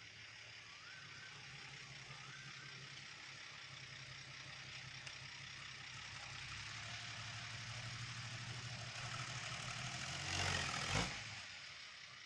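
Six-wheel dump truck's diesel engine running as it manoeuvres closer, growing louder. About ten seconds in there is a short, loud hiss of air as the truck stops, typical of an air brake.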